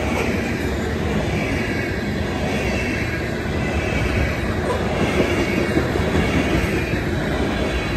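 Freight train of covered hopper cars rolling past close by, with steady wheel-on-rail noise and clatter over the rail joints and a faint high wheel squeal.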